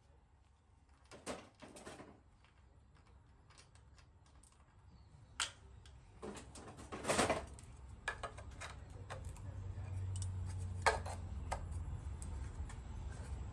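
Metal parts being handled at a miter saw: scattered light clicks and clinks, with the loudest knocks about a second in and around seven seconds. A low steady rumble builds from about eight seconds on.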